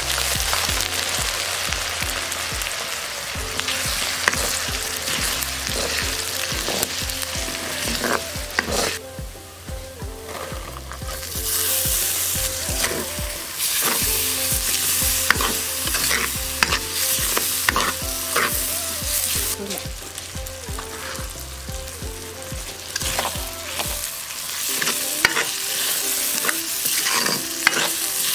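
Hot oil sizzling in an iron kadai as sliced garlic and green chillies fry, stirred with a wooden spatula that scrapes and clicks against the pan. The sizzle dips about nine seconds in, then comes back louder.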